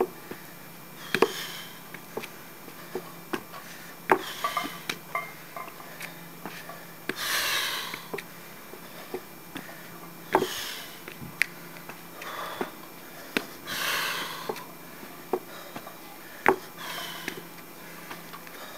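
Heavy breathing from a man doing barbell step-ups under a 155 lb load: a loud rushing breath roughly every three seconds, one for each rep, with short sharp knocks as his feet land on the stacked wooden step.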